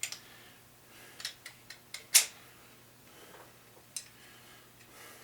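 Sharp metal clicks and knocks as parts from a 350 small-block are handled and set down during teardown, about eight separate taps with the loudest knock a little over two seconds in.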